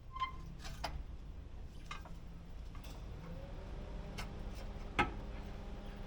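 Hand tools being handled during car suspension work: about half a dozen scattered metallic clicks and taps, the first with a short ring and the loudest about five seconds in, over a steady low hum.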